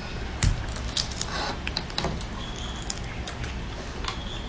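Lychee shells being peeled by hand: scattered crackles, snaps and handling clicks, with a sharper click about half a second in and a few faint short high chirps.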